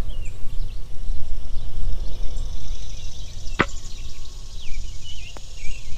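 Wind buffeting the microphone in a loud, gusting rumble, with birds chirping faintly in the background. A single sharp click cuts through a little past halfway.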